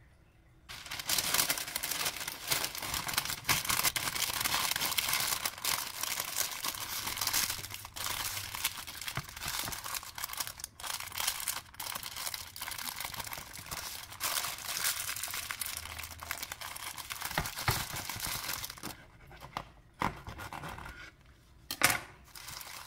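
Parchment paper crinkling and rustling as it is folded tightly around a sandwich, dying away after about 19 seconds. A few short sharp knocks follow near the end.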